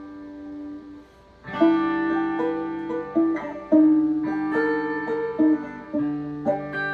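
Electric guitar and electrified banjo playing an instrumental together, their plucked notes ringing on. The music drops almost to nothing about a second in, then comes back louder, with new plucked notes over lower held ones.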